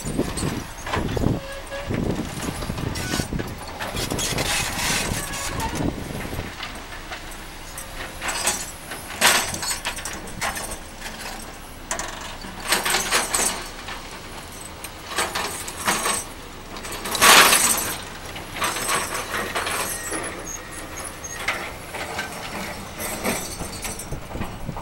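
An engine running at a steady low rumble, with irregular louder rushes of noise coming and going every few seconds. The loudest rush comes about two thirds of the way through.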